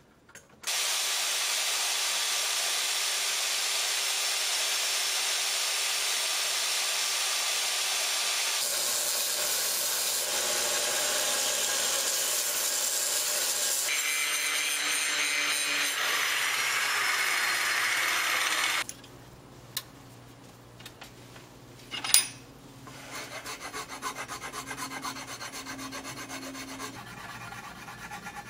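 Steady, loud hiss of power grinding on metal, in several cut-together stretches, the last with an angle grinder's disc; it stops about 19 seconds in. After a single sharp click, a hand file rasps in strokes along a wooden handle.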